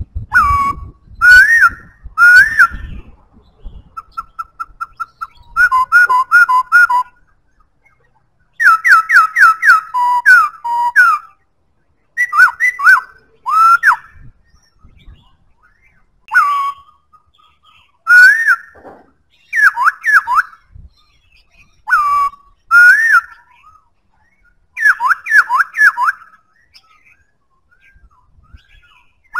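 Black-throated laughingthrush singing: loud, clear whistled phrases of quick notes that swoop up and down, with pauses of a second or two between phrases. About four seconds in there is a short, softer run of quick, even notes.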